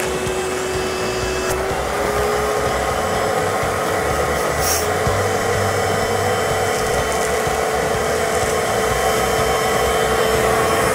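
Wet/dry shop vac running steadily, sucking air out of a vacuum storage bag through its hose. Its motor whine steps up in pitch about two seconds in and then holds.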